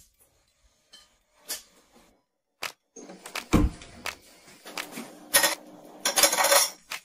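Hands unboxing a hair dryer and its attachments: scattered light clicks and taps of plastic and cardboard, a heavier thump about three and a half seconds in, and a brief rustling scrape near the end.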